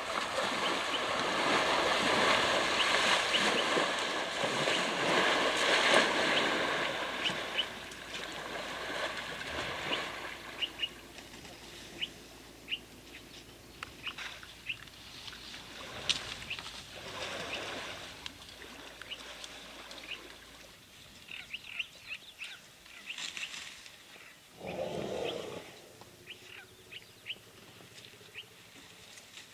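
Small birds chirping in short repeated calls. A loud rushing hiss fills the first eight seconds, and a brief lower sound comes about 25 seconds in.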